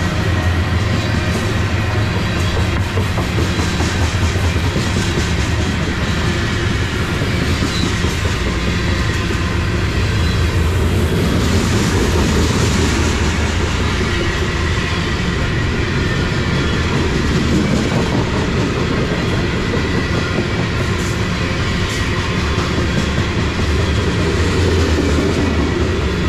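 Freight train of covered grain hopper cars rolling past close by: a steady, continuous rumble of steel wheels on the rails.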